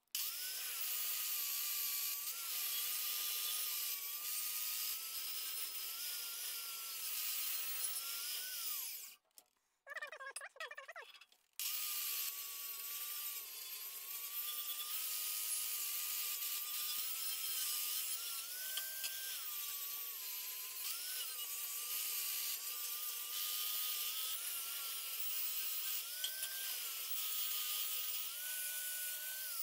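Angle grinder with a Scotch-Brite-type abrasive disc scrubbing rust off steel plate: a steady motor whine over scouring hiss, its pitch wavering as the disc is pressed into the work. It stops about nine seconds in, runs up briefly, and runs again from about twelve seconds in until it stops at the end.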